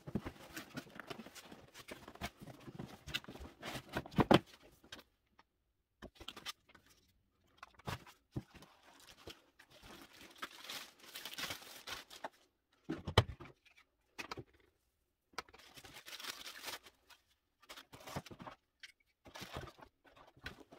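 Cardboard packaging and plastic wrap rustling and crinkling in irregular bursts as a robot vacuum is unpacked by hand, with a sharp knock about four seconds in and another about thirteen seconds in.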